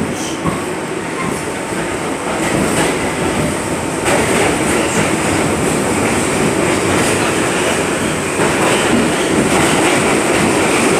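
R62A subway car running through the tunnel, heard from inside the car: a steady rumble of wheels on rail with faint clicking over the rail joints. The noise grows louder as the train gathers speed, with a clear step up about four seconds in.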